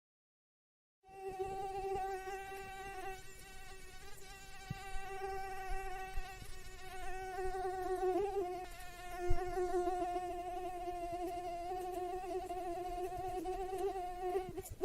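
Mosquito buzzing in flight: a steady, high whine that starts about a second in after silence, its pitch wavering slightly around the middle.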